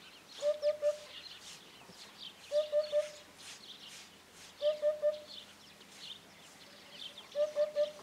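Eurasian hoopoe singing its courtship song: four phrases of three short, low hooting notes, about two seconds apart. Other small birds chirp faintly behind it.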